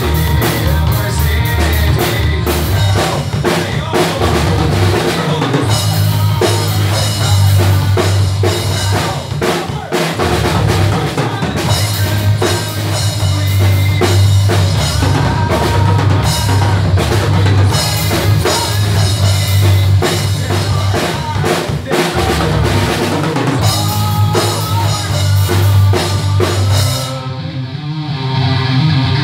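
Tama drum kit played in a rock groove, with kick drum, snare and cymbals, over a rock backing track with bass and guitar. Near the end the cymbals and drums stop and the guitar track carries on.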